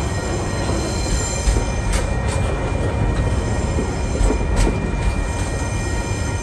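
Loaded container wagons of a freight train rolling past close by: a heavy steady rumble with sharp wheel knocks over rail joints every second or two, and steady high-pitched tones ringing above it.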